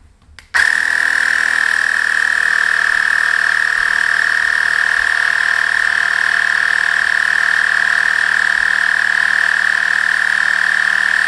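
Cycplus A7 electric bike tire inflator running: its small compressor gives a loud, steady high-pitched whine over a buzzing hiss, starting about half a second in.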